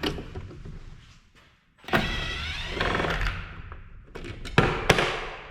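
Cordless power screwdriver whirring for about a second and a half, its pitch wavering as it backs a screw out of the monitor casing, followed by two sharp clicks.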